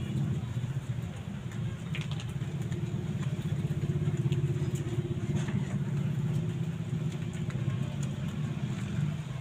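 An engine idling steadily, with a few faint ticks over it.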